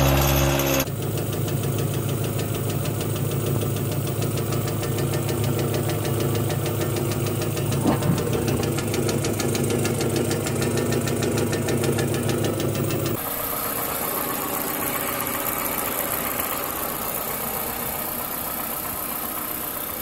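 An engine with a failing big-end (connecting-rod) bearing running with a fast, steady rod knock, not related to detonation. A little before two-thirds of the way through it cuts to a Toyota engine running with the ticking of noisy fuel injectors, a sound often mistaken for detonation. It opens with the last moment of an engine pinging under load, a sound like a bag of marbles.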